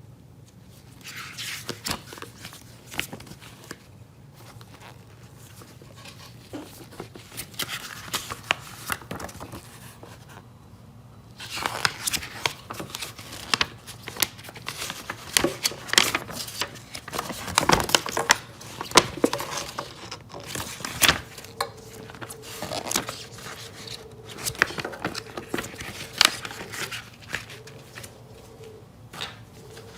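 Hands handling an unboxing: plastic and paper crinkling and tearing, with scattered clicks and taps that grow busier from about eleven seconds in.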